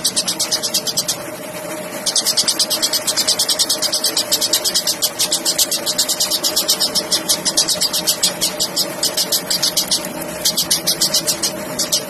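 Eurasian tree sparrow chattering: a fast, even run of sharp chirps, about ten a second, breaking off briefly about a second in and again near the end. A steady low hum runs underneath.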